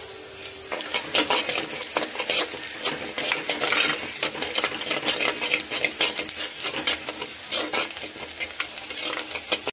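Chopped onions, curry leaves and green chillies sizzling in hot oil in a clay pot while a metal spoon stirs them briskly, clicking and scraping against the pot several times a second. The onions are being fried toward golden brown.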